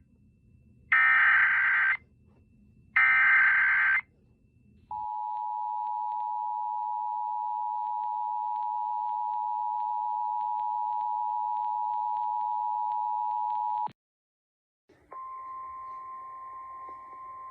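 Emergency Alert System signal: the last two of three buzzy digital header bursts, each about a second long, then the steady two-tone EAS attention signal held for about nine seconds and cut off abruptly. After a second of silence, a single steady higher tone begins.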